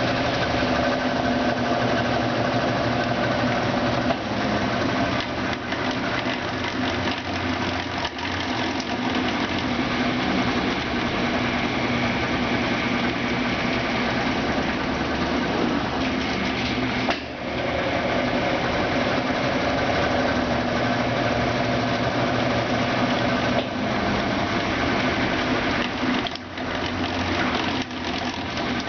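Brastemp Ative BWL11AR washing machine running, its motor giving a steady hum with several held tones. There is a brief drop in level a little past halfway.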